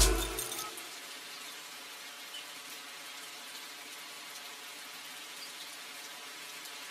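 Background music ending within the first half second, then a faint steady hiss of room tone with no distinct sounds.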